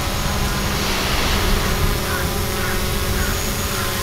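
Small quadcopter drone flying overhead, its propellers giving a steady whine, with wind buffeting the microphone.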